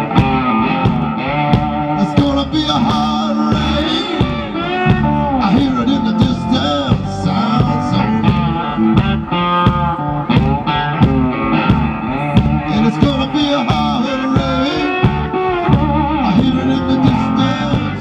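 Live blues band playing an instrumental break between verses: an electric guitar lead with repeated string bends over bass and drums.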